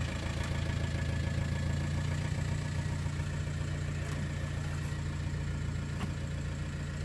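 Car engine idling steadily, heard from inside the cabin.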